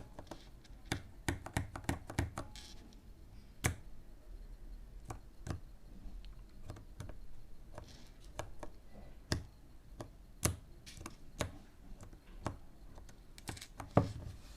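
Cherry MX mechanical keyboard switches on a switch tester board being pressed and released by hand, giving sharp, irregular clacks: a quick run in the first couple of seconds, then single presses about a second apart, and another quick run near the end.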